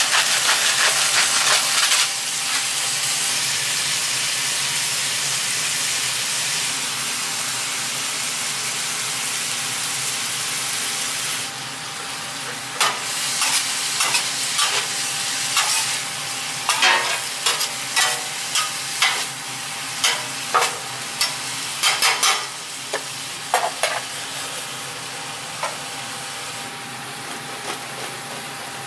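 Sliced beef, onions and green peppers sizzling on a hot flat-top griddle. From about halfway a metal spatula strikes and scrapes the griddle in quick irregular clacks as the meat and vegetables are chopped and turned, while the sizzle goes on more quietly.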